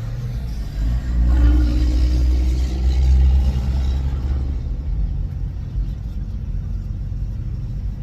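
Car running, a steady low engine and road rumble that swells louder for a few seconds about a second in, then settles back.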